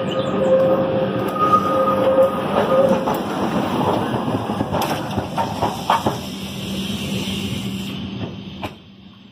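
Santa Teresa electric tram running on its rails: a steady rumble and rattle with a few sharp clacks from the track. A steady high whine runs through the first three seconds, and the sound fades out near the end.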